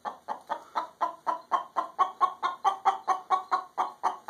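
Hen cackling her egg song after laying: a steady run of short, sharp clucks, about four a second.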